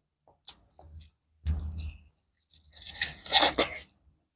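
Eating by hand: a few short, soft squishing and scraping sounds as fingers mix rice and curry on a steel plate. The loudest cluster comes about three seconds in.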